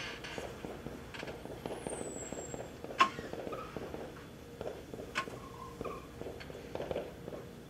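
Chalk tapping and scratching on a blackboard as words are written: irregular sharp taps, the loudest about three seconds in, over a faint steady hum.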